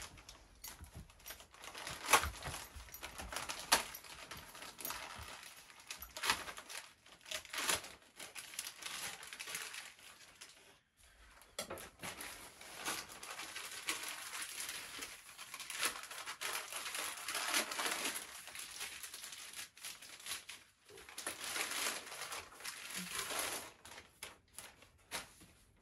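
Crinkly plastic package wrapping being torn open and crumpled by hand, in irregular rustling bursts with a couple of short pauses.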